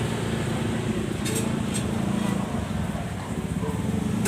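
Steady background din of a gathering with indistinct voices, and two short clinks, like dishes or glass, about a second and a half in.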